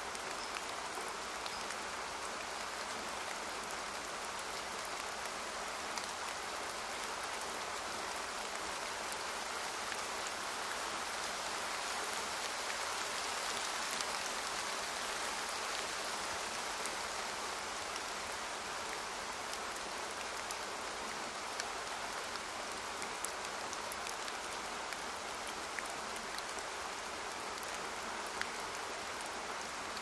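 Steady hiss of water noise, rain-like, with scattered faint ticks; a little louder around the middle.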